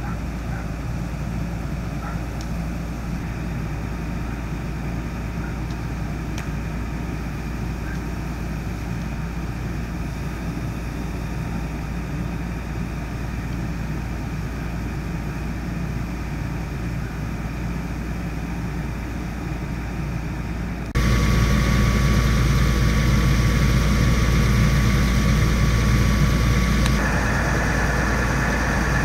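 Fire engine's engine running steadily, a low rumble with a noisy hiss over it. About two-thirds of the way through it turns abruptly louder, with a thin steady whine.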